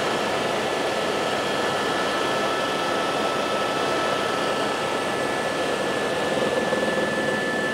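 Helicopter engine and rotor heard from inside the cabin in flight: a steady rushing drone with a thin, steady high whine over it.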